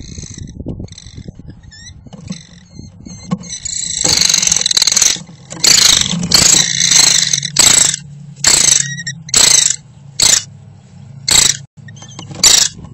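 American kestrel calling close to the microphone in a nest box: high short chirps at first, then from about four seconds in a long loud harsh call followed by loud hoarse bursts about every half second to a second.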